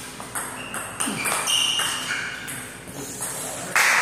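Table tennis rally: the ball clicks sharply off paddles and table, about three hits a second, each with a short ringing ping. A louder rush of noise starts near the end.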